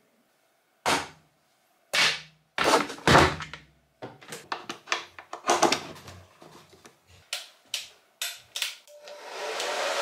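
A few loud knocks and clatters, then a run of quicker clicks and taps. Near the end a hair dryer is switched on and its steady blowing rises and holds.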